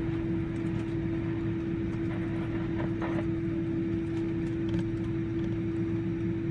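Cabin noise of a Boeing 777-300 taxiing after landing: a steady low rumble with a constant droning hum.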